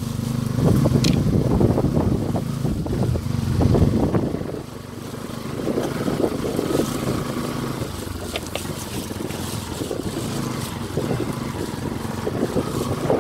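Motorcycle engine running as the bike rides a rough dirt track, with the rumble and small knocks of the ride. The engine sound dips briefly about four and a half seconds in, then picks up again.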